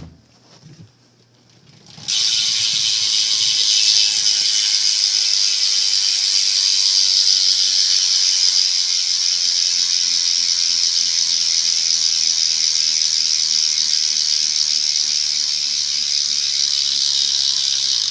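Colony Clone cassette hub on a BMX rear wheel freewheeling, its pawls buzzing in a fast, steady ratchet as the wheel spins. It starts suddenly about two seconds in, after a few faint knocks, and cuts off abruptly near the end.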